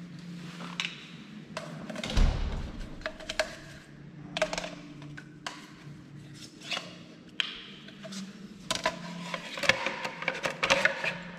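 Steel machine parts being handled and set in place on a pipe seaming machine: a run of irregular knocks, clanks and clinks with short metallic ringing, and a heavier thump about two seconds in, over a low steady hum.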